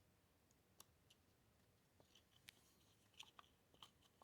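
Near silence, with a few faint, sharp clicks as the rifle's pistol grip is handled into place over the safety detent.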